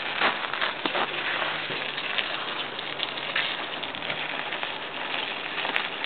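A flock of feral pigeons pecking seed off snowy pavement: a dense, even patter of many small beak taps.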